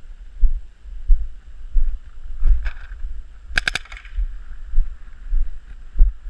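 Footfalls walking on grass, heard as low thuds about one and a half times a second. Near the middle an electronic paintball marker fires a quick burst of about four shots, with a couple of softer pops about a second before.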